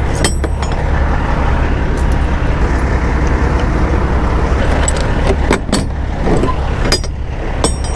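Steady low rumble of an idling diesel semi truck, with several sharp metallic clicks and clanks as the trailer's rear-door lock bars and latch handles are worked.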